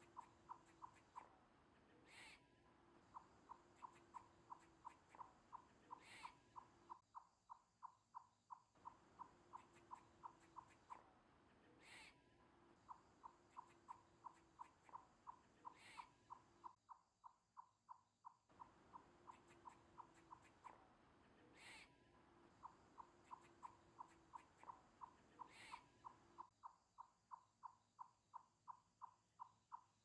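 Faint night-woods nature ambience: a rapid pulsing animal call about three to four times a second, a low drawn-out tone lasting several seconds and a short sharp call every few seconds, the whole pattern repeating about every ten seconds as a loop.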